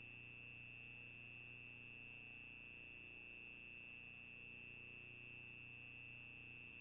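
Near silence with a faint steady high-pitched electronic whine and low hum: the self-noise of a CCTV camera's microphone.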